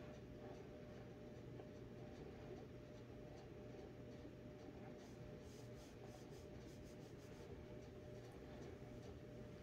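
Near silence: room tone with a faint steady hum and a few faint ticks or rustles a little past halfway through.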